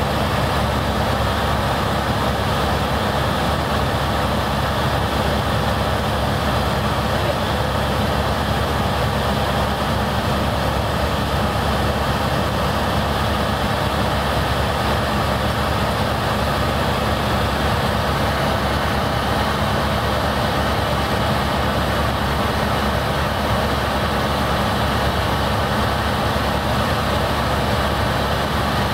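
Helicopter in cruising flight heard from inside the cabin: the engine and rotor make a steady, loud drone with a low hum beneath it.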